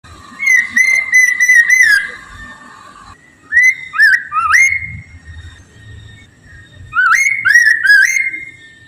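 A poksay mandarin (Chinese hwamei) singing loud, clear whistled song phrases, with rapid slurred and upward-sweeping notes, in three bursts separated by short pauses.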